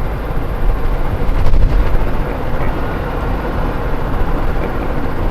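Steady low engine and road rumble of a vehicle being driven, heard from inside the cab.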